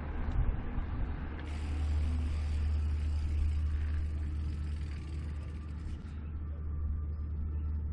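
Riding noise from an e-mountain bike on the move: a steady low rumble of wind and tyres, with a louder rushing hiss from about a second and a half in until about six seconds in.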